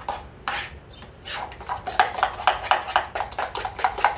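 A spoon stirring thick yeast starter dough in a small metal pot, scraping and knocking against the sides in quick strokes, about four or five a second from just over a second in.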